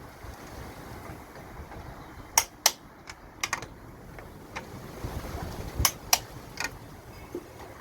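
Click-type torque wrench tightening bolts: a series of sharp metallic clicks, the loudest coming in two quick pairs about two and a half seconds in and again near six seconds. The click is the wrench signalling that the set torque has been reached.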